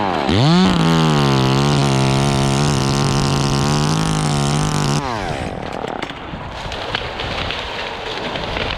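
Chainsaw revved up and held at steady high revs for about four seconds as it cuts. The revs drop about five seconds in, and a quieter, uneven noise follows.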